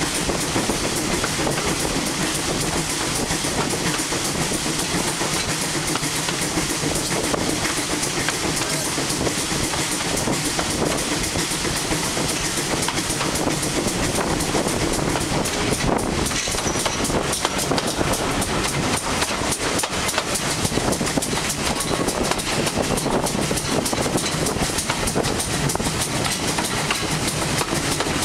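Ex-GWR steam tank locomotive hauling a train, heard from an open carriage window just behind it: a steady, loud mix of working exhaust and the clickety-clack of wheels over rail joints.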